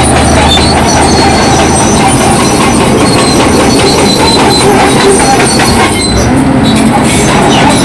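Bulldozer working: its diesel engine running steadily under load while the steel tracks clank continuously.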